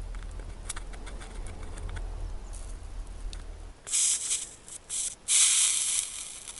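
Soldering iron on the leads of new alternator slip rings, with a low hum for the first few seconds and faint clicks. Then three loud bursts of sizzling hiss as the hot iron melts solder and flux on the joint.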